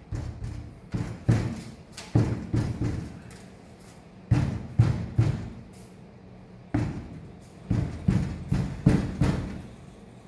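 Hands thumping on a windshield from inside a truck cab to seat the glass in its frame: hollow knocks in short runs of two to four, with pauses between the runs.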